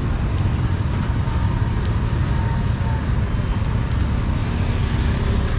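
Steady street noise: a constant low traffic rumble with a few faint clicks.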